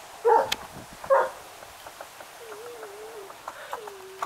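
A dog barks twice, sharply, about a second apart near the start. Behind the barks, a bird gives a low, wavering cooing call that comes and goes.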